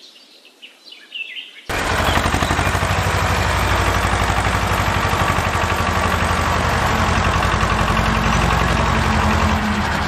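Tractor engine running, cutting in abruptly about two seconds in and holding a steady, rapid chugging rhythm. Faint bird chirps come before it.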